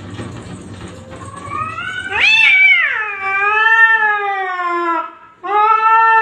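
Cat yowling: one long wavering call that rises sharply, then falls slowly over about three seconds, followed after a brief pause by a second, steadier yowl.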